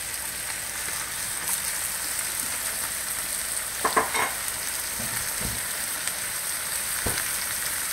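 Seared chicken breasts with freshly added chopped carrots and celery sizzling steadily in a frying pan on the stove. A brief voice sound comes about four seconds in, and there are a couple of soft low knocks near the end.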